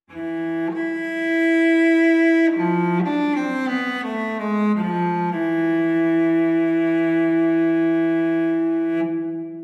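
Solo cello music: a long held note, then a run of notes stepping downward about midway, then another long held note that fades out near the end.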